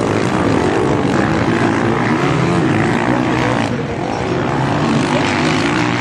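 Motocross bikes racing on the track, several engines revving up and down with shifting pitch, dipping briefly about two-thirds of the way through.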